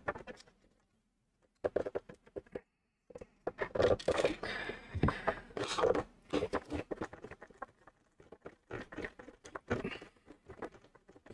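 Irregular clicks, taps and scrapes of hands handling a plastic knitting-machine housing and a screwdriver while it is screwed back together.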